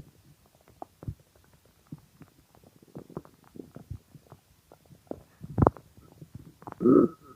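Hungry human stomach gurgling and growling: many small scattered pops and gurgles, a louder gurgle about two-thirds of the way through, and a longer growl near the end with a high whine running through it.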